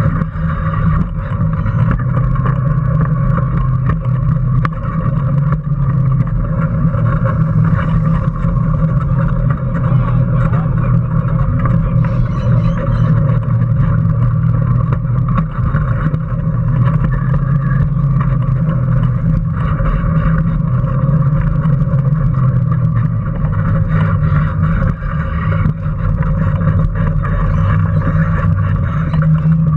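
Small home-built electric race car driving, heard from a camera mounted on it: a steady motor and drivetrain hum with small rattles and clicks from the chassis.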